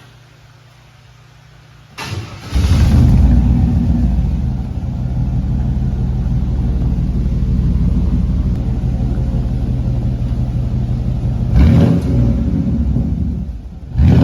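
Truck engine cranked and started about two seconds in, then running loudly through a newly fitted exhaust with a Cherry Bomb muffler, with brief revs near the end. The new exhaust sounds better to the owner.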